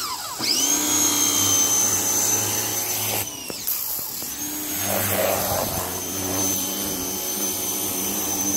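Ryobi 1900 PSI electric pressure washer running with a high motor whine. The pitch drops sharply and climbs back twice, at the start and about three seconds in.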